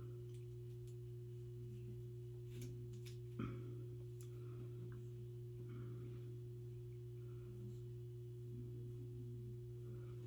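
A steady low electrical hum with a fainter steady tone above it, under faint clicks and rustles of a wig being handled and clipped, with one sharper click about three seconds in.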